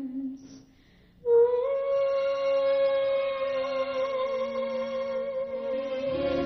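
A woman's solo singing voice through a handheld microphone: after a short pause about a second in, she holds one long note with vibrato over soft accompaniment, which grows fuller near the end.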